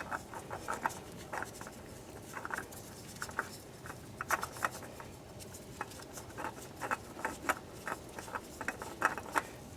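Irregular small clicks and scrapes of a new oil filter being worked by hand onto its threaded mount, hard to line up at an awkward angle.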